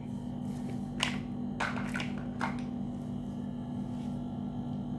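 Toy animal figures being handled and set down: a few short scuffs and knocks about one to two and a half seconds in, over a steady low hum.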